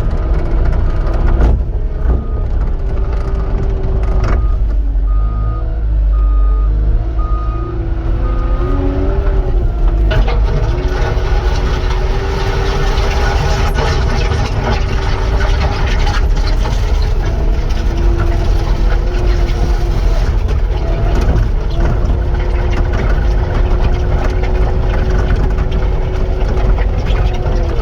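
Cat 259 skid steer's diesel engine running under load while the machine backs up, its reverse alarm beeping steadily through roughly the first nine seconds. From about ten seconds in the engine works harder, with a rougher, noisier sound as the machine pushes material.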